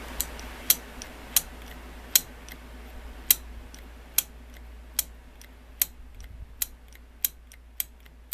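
Holley four-barrel carburetor base plate with its throttle shaft worked by hand, the throttle plates snapping shut with a sharp metal click each time the lever is released, about one to two a second and coming quicker near the end. The quick snap-back is the sign of a repaired shaft that moves freely.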